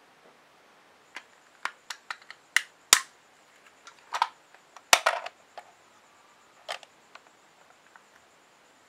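Hard plastic model-kit parts of a small Going Merry ship model clicking and snapping as they are pressed and fitted together by hand: an irregular string of sharp clicks, the loudest about three and five seconds in.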